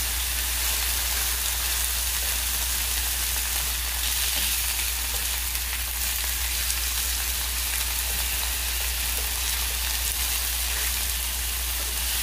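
Marinated chicken breast sizzling steadily as it fries in hot oil in a wok, with a steady low hum underneath.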